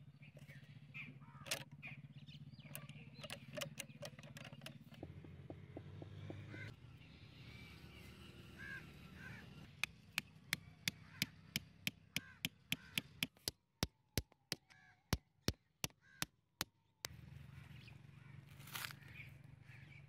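Outdoor ambience with birds calling now and then over a steady low hum. Midway comes a run of about twenty sharp clicks, evenly spaced at roughly three a second, lasting some seven seconds.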